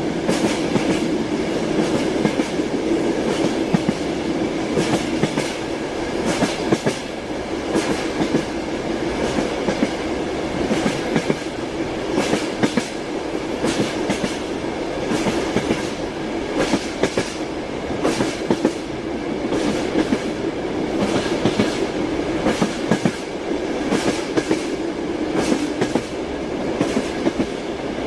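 Train wheels clattering over rail joints: a steady rumble of a moving railway carriage with frequent sharp knocks in uneven groups.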